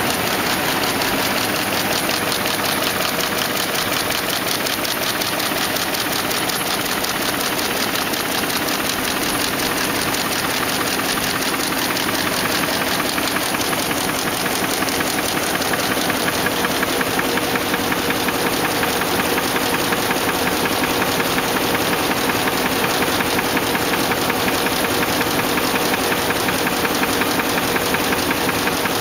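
Envelope folding and gluing machine running at speed: a fast, steady mechanical clatter with a constant hum underneath.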